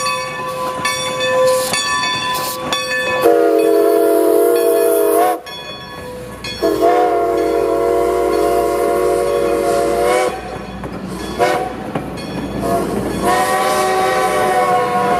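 A locomotive's multi-note chime horn blows three long blasts: a two-second one a few seconds in, a longer one of about three and a half seconds, and a third still sounding at the end. A train's low rumble builds underneath.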